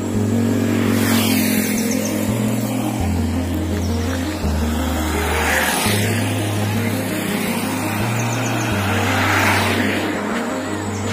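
Motor vehicles on a road pass close by one after another, three passes about a second, five and a half and nine and a half seconds in, each swelling and fading. Under them runs instrumental background music with a bass line that steps from note to note.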